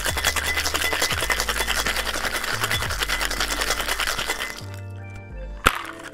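Ice rattling hard in a metal cocktail shaker as it is shaken, stopping about four and a half seconds in, followed by a single sharp knock. Background music with a steady bass plays underneath.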